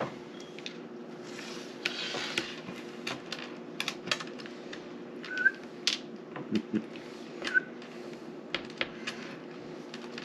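Scattered light clicks and taps of game pieces and cards being handled on a tabletop, irregular and a few per second, over a steady low hum.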